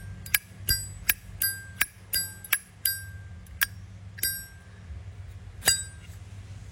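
Zippo lighter's hinged metal lid flicked open and snapped shut over and over: about a dozen sharp clicks, each with a clear ringing tone, like a temple bell. The lid has been adjusted for this ring. The clicks come about three a second, spacing out near the end, and the loudest one is the last.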